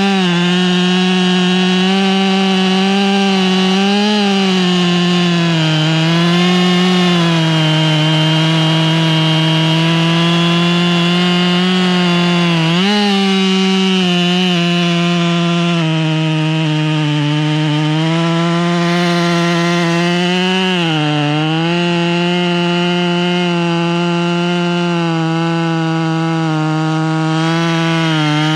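Husqvarna 572 XPG two-stroke chainsaw running at full throttle with its chain buried in a thick red beech log. The engine holds a steady pitch under load, dipping briefly a few times as the cut bogs it and recovering each time.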